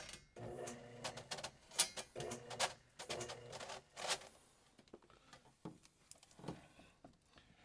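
Light clicks and rattles of a power drain auger's steel cable being handled at the pipe opening and drum, over a faint steady hum that fades about four seconds in.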